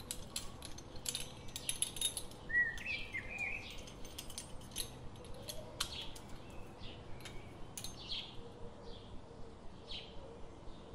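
Rolling pizza cutter slicing through a baked bun pizza's crust on a wooden board, with short crisp clicks over the first several seconds. Birds chirp in the background throughout.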